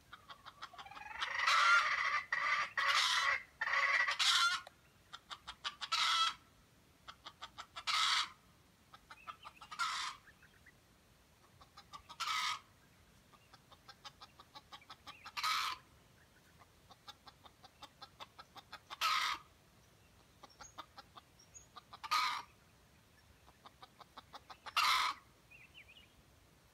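Decoy junglefowl rooster in a bait trap calling: runs of quick soft clucks, each building to a short loud call, repeated every two to three seconds, with a longer dense stretch of calling about one to four seconds in.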